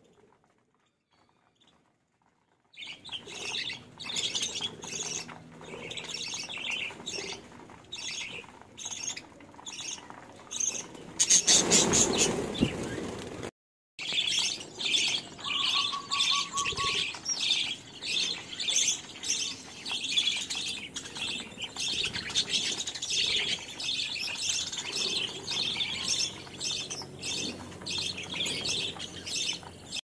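A flock of budgerigars chattering with many rapid high chirps, starting about three seconds in. Around the middle there is a louder burst of wing flapping.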